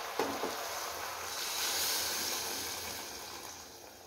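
Water being poured into a hot pressure cooker of frying vegetables and spice masala, hissing and sizzling; the hiss swells about halfway through, then fades.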